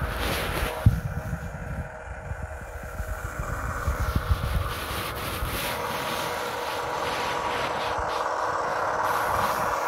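Low, uneven rumbling and rubbing with a sharp knock about a second in, like a Lego car's plastic wheels rolling on a wooden floor. From about halfway this gives way to a steady, engine-like hum that slowly grows louder.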